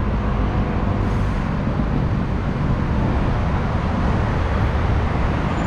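Steady, heavy road traffic: a continuous din of passing vehicles' engines and tyres, with no single event standing out.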